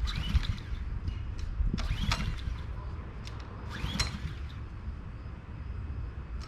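A gas pressure washer's recoil starter being yanked three times, about two seconds apart, each pull a short rising-and-falling whir with clicks, and the engine not catching.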